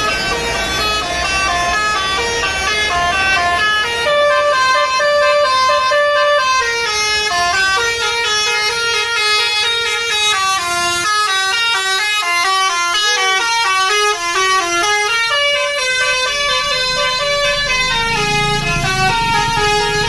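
A tour bus's telolet horn plays a continuous melody of short, quickly changing notes, like a tune on several horn trumpets. Near the end a low engine rumble joins as the bus passes close by.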